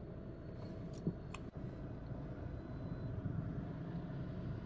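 Steady low road and engine rumble of a Hyundai i20 Active being driven, heard from inside the cabin, with a couple of faint clicks about a second in.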